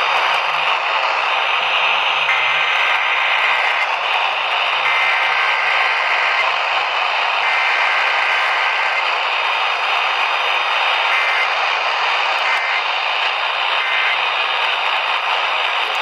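AM radio reception through a Midland emergency radio's speaker, full of static hiss. The hiss carries the Emergency Alert System's digital data tones: three warbling two-tone header bursts of about a second and a half each, then three short end-of-message bursts near the end, marking the close of the weekly test.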